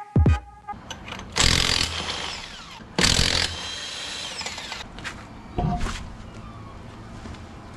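Cordless impact wrench zipping lug nuts off a truck wheel in short bursts: two longer runs about one and a half and three seconds in, and a brief one near the six-second mark.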